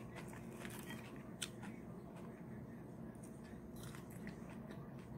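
Quiet eating: a person chewing a mouthful of coleslaw, with a few faint soft clicks over low room tone.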